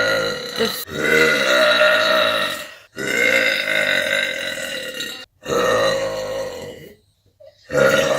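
A woman belching: a run of long, drawn-out burps, each lasting about two seconds with short breaks between. A brief silence comes before another burp starts near the end.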